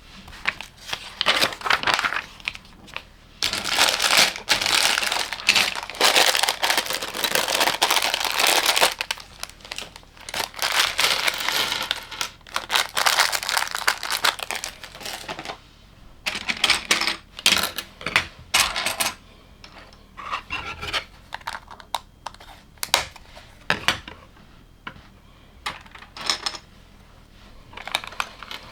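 Plastic LEGO parts bag crinkling and loose pieces being shuffled through it for about the first half. After that come a run of short plastic clicks and taps as LEGO pieces are handled and set down.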